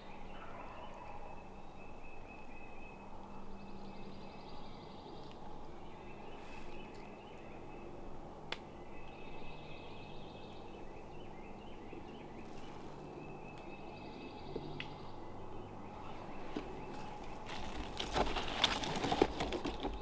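Dawn woodland birdsong: a songbird repeats a trilled song of about two seconds every few seconds, over a faint low hum. Near the end comes a short, louder burst of rustling or scuffing noise.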